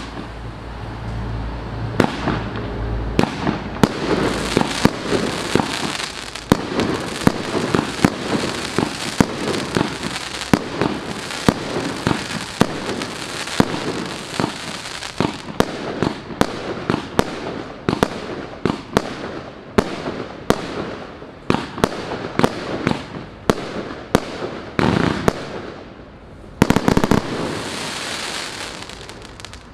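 A 180-shot fireworks battery (FUROR FC180MK-1, 20, 25 and 30 mm tubes) firing a continuous barrage: dozens of sharp shots and bursts in quick succession over a dense rushing noise, with a louder flurry near the end.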